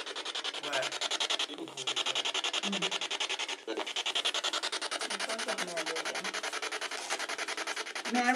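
Spirit box sweeping through radio stations, played through a small external speaker: a rapid, even chopping of radio static with brief snatches of broadcast voices breaking through.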